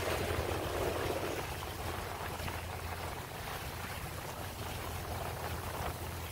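Sea water rushing and splashing along a sailboat's hull, with wind on the microphone, over a steady low hum. The rush is strongest for the first second and a half, then eases.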